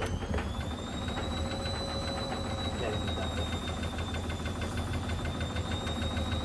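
Elin washing machine on a spin: its motor gives a high whine that climbs a little in the first second and then holds steady, over a low hum and a fast, even knocking from the spinning drum.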